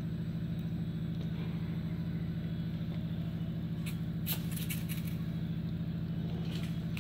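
A steady low mechanical hum with a fine rapid pulse. About four seconds in, a few brief light scratchy ticks as the peacock-feather wand toy brushes about.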